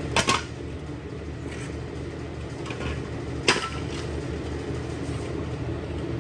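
Two sharp metallic clanks, one at the start and a louder one about three and a half seconds in, from a heavy steel drum-brake shoe being handled just after being rolled off a semi truck's rear axle, over a steady low hum.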